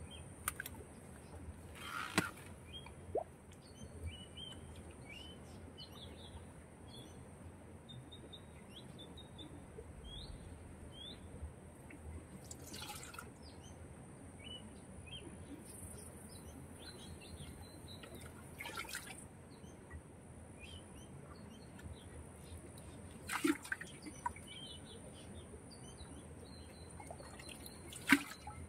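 Muddy water splashing as it is scooped and poured out of a pit with a metal pot, in several separate splashes a few seconds apart, the loudest near the start and near the end. Small birds chirp throughout, over a steady faint high tone.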